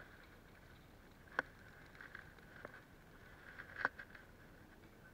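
Two sharp clicks about two and a half seconds apart, with a few fainter ticks between them, over a faint steady background hiss.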